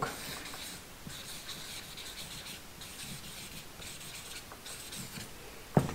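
Felt-tip marker rubbing across flip-chart paper as a word is written by hand, in a run of short scratchy strokes.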